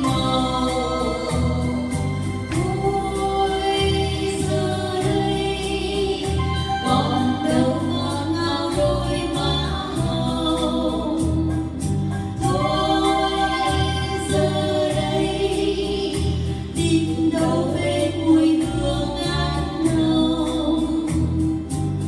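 Two women singing a duet in long, held phrases into microphones, over an electronic keyboard accompaniment with a steady bass beat.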